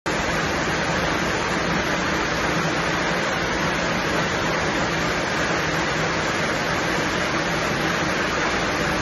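A loud, steady, unbroken rush of water, with no separate splashes or knocks standing out.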